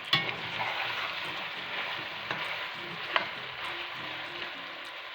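Chicken with chopped bell peppers, chili peppers, green onion and garlic sizzling in a hot pot as it is stirred, with a utensil knocking sharply against the pot three times.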